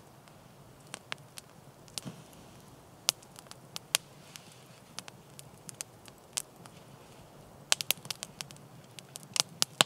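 Open wood campfire crackling, with irregular sharp pops and a quick run of pops near the end.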